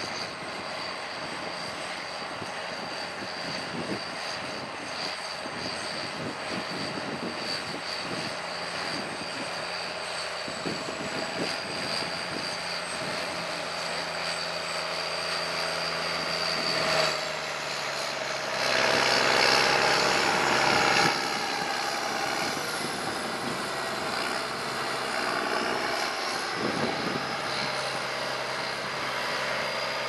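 McCormick ZTX 260 tractor's diesel engine running steadily under load while pulling a five-furrow reversible plough. The engine note shifts a little past the middle, and there is a louder, noisier stretch of a few seconds just after that.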